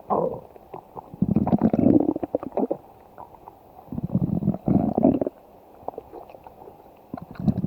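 A person's stomach growling in irregular rumbling bursts, the longest about a second in and another around four seconds in, with faint pops between them.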